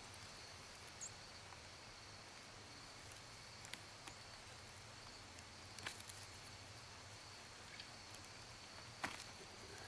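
Near silence: a few faint, scattered clicks and snaps as a pocket knife cuts through the base of a maitake cluster, over a faint steady high insect trill.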